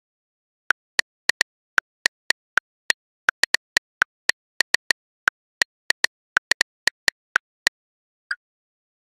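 Smartphone on-screen keyboard clicking as a message is typed: about two dozen short clicks at an uneven typing pace, then a pause and one last click near the end.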